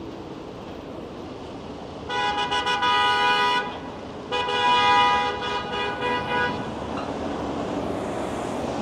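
Vehicle horn honking twice over street traffic: a long blast of about a second and a half, then a longer one of a little over two seconds.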